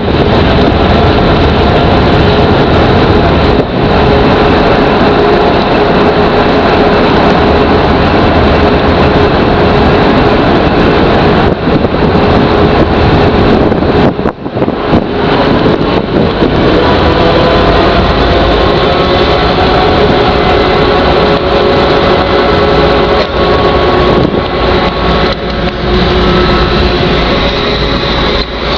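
A ferry's engine running steadily under a loud wash of noise, with several steady tones that shift slightly in pitch about halfway through.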